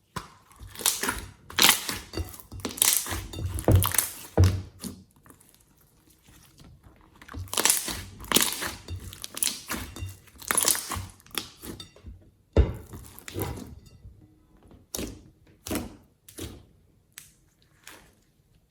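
Slime being pressed and squished by hand: irregular crunchy, squelching pokes and presses, denser in the first few seconds and again in the middle, thinning to single pokes near the end.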